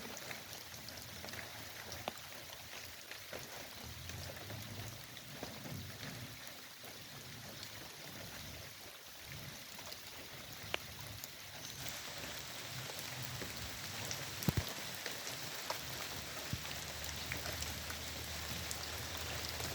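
Steady rain falling, with scattered individual drops landing close by; the rain gets a little louder about two-thirds of the way through.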